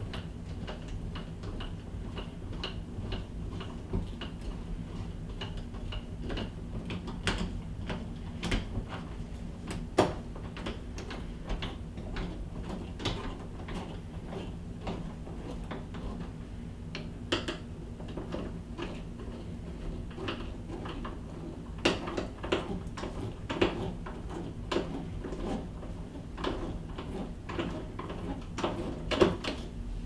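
Hand screwdriver tightening the mounting screws of an interior door knob, making small metallic clicks and scrapes as the tool turns and the knob hardware shifts. A light even ticking runs through the first few seconds, and several sharper knocks come about a third of the way in and again toward the end, over a steady low hum.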